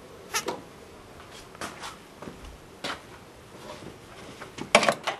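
Scattered clicks and knocks of things being handled, the loudest cluster a little before the end; no starter motor or engine is heard.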